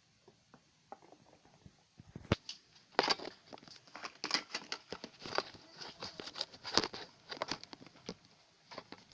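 Close, irregular crackling and clicking handling noise, like something being worked or crinkled in the hands, starting about two seconds in and running on in a dense, uneven patter.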